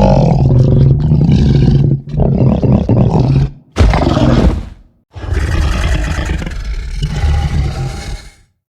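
Stegosaurus roar sound effects: a run of four animal roars with short breaks between them. The first is already going and stops about two seconds in, the third is short, and the last is the longest, about three seconds.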